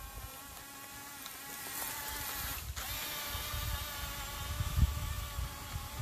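Radio-controlled toy bulldozer's small electric drive motor and gearbox whining steadily as the model backs away from the dirt pile, with low rumbling bumps near the end.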